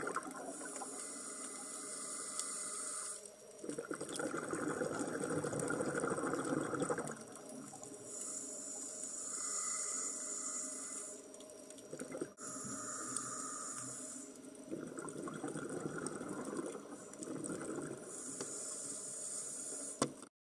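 Scuba diver breathing through a regulator underwater: a hissing inhalation alternating with a lower bubbling exhalation every few seconds, over several breaths. The sound cuts off abruptly near the end.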